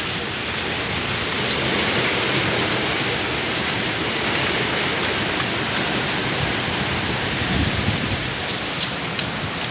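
Strong wind rushing with a steady, dense hiss, gusting against the microphone in low rumbles, most strongly about eight seconds in.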